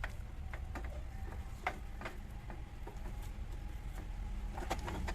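Spoon stirring thick, cooking rice-flour paste in a pan on the stove: irregular soft clicks and taps over a steady low hum.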